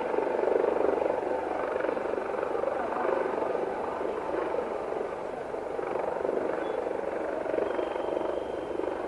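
Steady mechanical drone of a jet parked at the gate and its ground equipment on an airport apron, with no sudden events; the aircraft's engines are not yet running.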